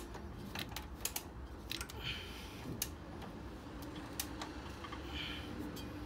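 Irregular light clicks and a little rustling from hands working at the timing chain on a Mercedes 190SL engine.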